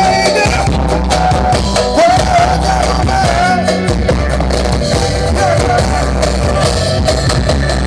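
Loud music with a heavy, steady bass and a wavering melody line, played through a paredão, a car-mounted wall of loudspeakers.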